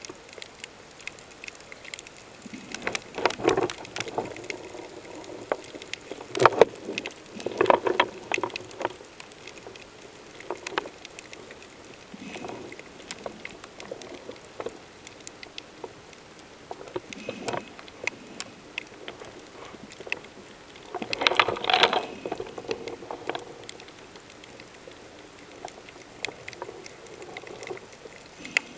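Underwater recording: a faint steady crackle with irregular louder bursts of bubbling and crackling, the strongest about 3, 7 and 22 seconds in.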